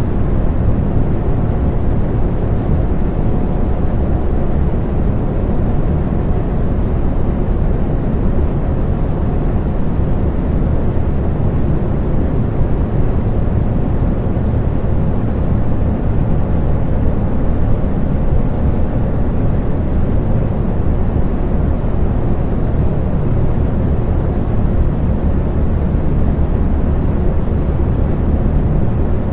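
Electric fan running steadily: a continuous low whooshing rush of air with a faint steady hum in it.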